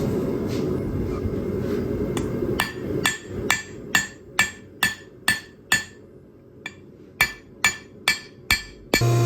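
Hand hammer striking steel on an anvil, about two blows a second, each blow ringing: a run of eight, a short pause, then five more. Before the blows start there is a steady rushing noise.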